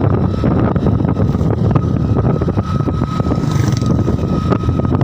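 Motorcycle running steadily at road speed, with wind buffeting the microphone.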